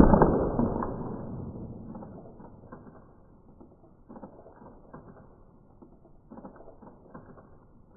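A single paintball gun shot striking an egg at close range: a sharp crack at the very start, followed by noise that fades away over a couple of seconds. After that come scattered faint clicks and creaks.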